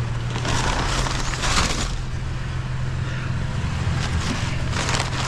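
A vehicle engine idling with a steady low hum, under intermittent bursts of rustling and crumpling as packing paper and scrap items are handled.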